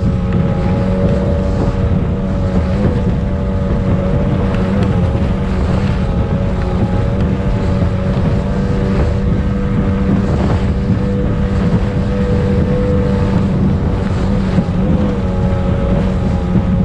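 Racing speedboat's engine running steadily at speed, heard from on board, with its pitch wavering slightly a couple of times, over wind buffeting the microphone and rushing water.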